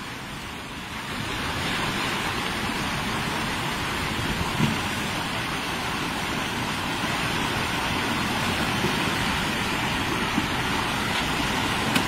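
Typhoon wind blowing hard across the microphone, with churning surf and driving rain, getting louder about a second in.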